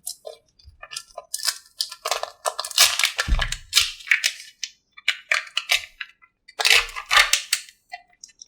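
Irregular crunching and crackling in clusters, like material being crushed, with a deep thump about three seconds in.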